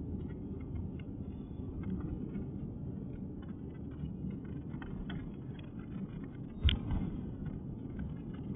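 Steady low rumble of a car driving slowly along a street, with one short sharp knock about three-quarters of the way through.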